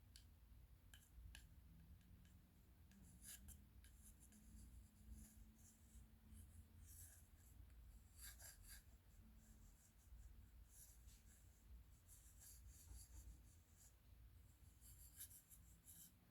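Faint, scattered scratching and light ticking of fingers or nails working over a round cake box and its plastic lid, a few soft strokes every second or so.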